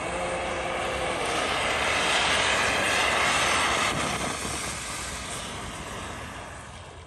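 Size-4 conic fountain firework strapped to the stern of a toy remote-control boat, spraying sparks with a loud steady hiss. The hiss swells over the first couple of seconds and then dies down toward the end.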